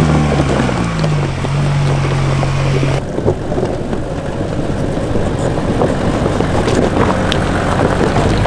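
A 4x4 driving: the engine hums steadily and drops in pitch about a second in, then, after an abrupt change about three seconds in, rushing wind and tyre noise with scattered ticks.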